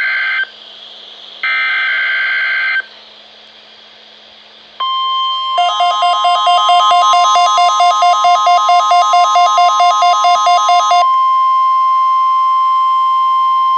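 NOAA Weather Radio's SAME digital header is heard as two raspy bursts of data tones. About five seconds in, the steady 1050 Hz weather radio warning alarm tone starts and holds. About a second later a Midland WR120 weather receiver's advisory alert tone pulses over it, about four beeps a second, and stops after about five seconds while the 1050 Hz tone carries on.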